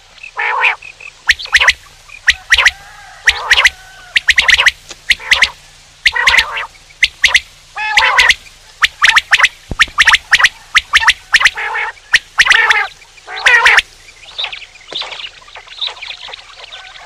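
Male quail calling over and over: short, sharp calls in quick, irregular succession, loud at first and becoming fainter for the last few seconds.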